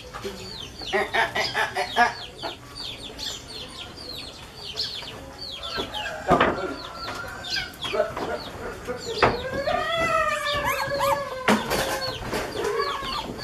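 Chickens clucking, with a steady run of short, high, falling peeps and a longer drawn-out call a little past the middle. A few sharp knocks, the loudest about six seconds in.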